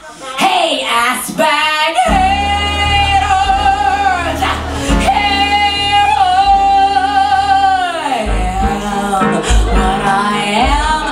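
A woman sings into a microphone with a live band of piano, bass, drums and guitar. She opens with short phrases, then belts two long held notes, and quicker phrases follow near the end.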